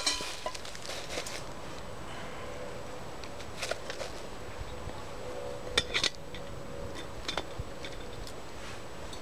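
Stainless steel camping cup and its metal lid being handled: a sharp knock at the start, then scattered light metallic clicks and taps as things are moved in the cup and the lid is set on.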